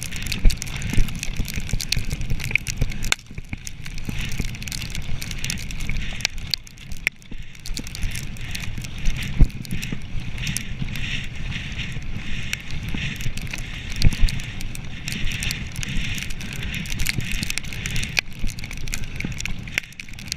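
Mountain bike rolling fast over a rough dirt trail: a steady rumble and crunch from the tyres, with frequent sharp clicks and knocks as the bike rattles over bumps.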